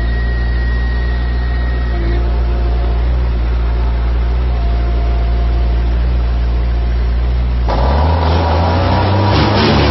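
Engine powering a hydraulic tree spade, running steadily. About eight seconds in it revs up abruptly and runs louder and harsher.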